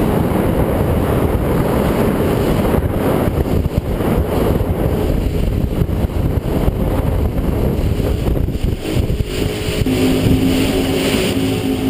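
Twin outboard motors driving a rescue boat at speed, mixed with the rush of the churning wake and wind on the microphone. About ten seconds in, a steady engine note comes through more clearly.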